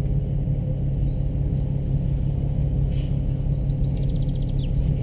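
Car running on the move, a steady low engine and road rumble, with a faint rapid high ticking in the last second and a half.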